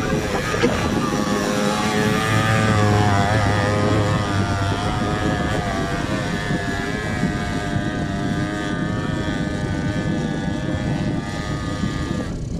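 Quad bike (ATV) engine revving under load on a steep sandy hill climb, its pitch rising and falling with the throttle.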